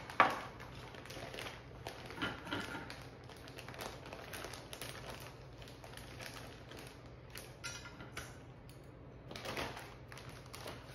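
A metal measuring cup scoops riced cauliflower out of a zip-top plastic bag into a steel bowl. There is one sharp metal clink just after the start, then soft scattered clicks, scrapes and plastic bag rustling.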